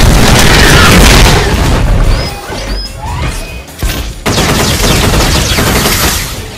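Loud film-style explosion sound effects. A long rumbling blast eases off about two seconds in, and a second loud blast hits suddenly about four seconds in and fades near the end.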